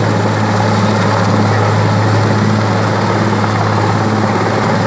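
Large helicopter landing, its rotor and turbine engines running loud and steady, with a deep continuous hum under the noise and a thin high whine above it.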